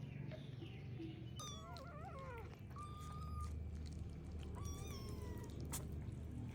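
Baby kittens mewing: three high-pitched cries, the first wavering up and down, the next two held steadier, over a low steady hum.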